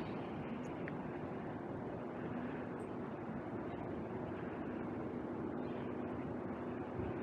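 Steady city street ambience: a constant rush of noise with a low steady hum running under it.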